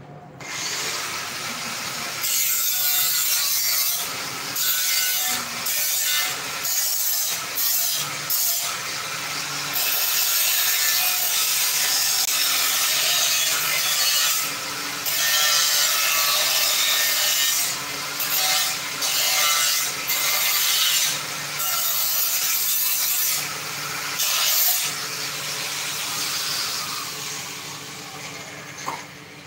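Handheld electric angle grinder cutting through sheet metal: a loud, harsh grinding hiss over the steady hum of the motor, broken by many short dips as the disc eases off and bites again. It tails off near the end.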